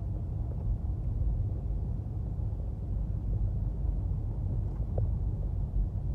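Wind buffeting the microphone: a steady, uneven low rumble with no clear pitch.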